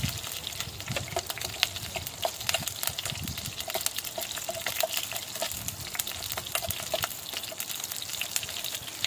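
Pot of broth simmering over an open wood fire, stirred with a metal ladle: a dense, fine crackling and bubbling with a few soft knocks of the ladle.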